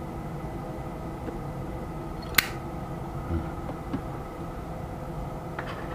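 A lighter struck once with a sharp click about two and a half seconds in, to light a cigarette, with a few fainter clicks later. A steady room hum runs underneath.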